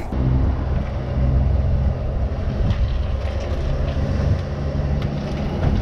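An engine idling, a steady low drone with an even pitch throughout.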